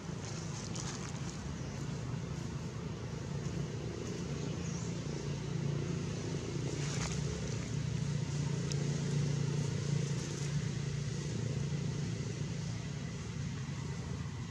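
Steady low rumble, like a running engine, with a few faint light clicks.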